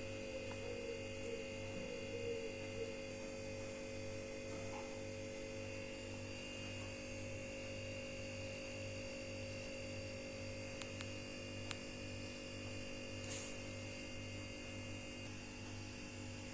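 Steady electrical hum made of several constant tones, with a low hum that pulses evenly, and a few faint clicks.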